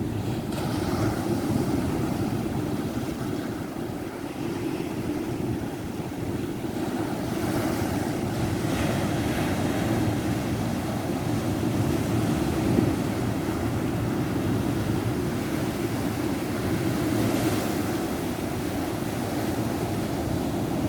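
Ocean surf breaking and washing onto a beach in a continuous rushing wash. Louder hissing surges come a little before the middle and again near the end.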